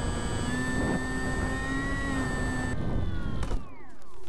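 Electric motor and propeller of a foam RC plane whining steadily, heard from the onboard camera. About three seconds in, the pitch falls as the throttle is cut and the motor spins down, leaving wind rumble and a few knocks.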